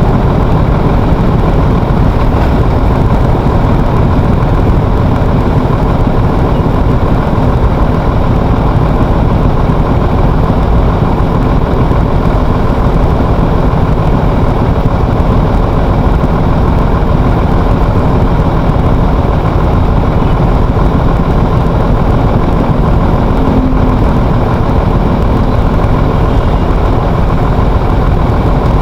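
Vehicle engine running steadily, with road and wind noise. The sound stays loud and unchanging throughout.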